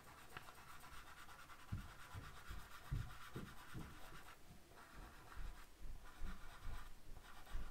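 Faint scratching of a chalk pastel stick rubbing on paper as an area is shaded dark, with a few soft low knocks.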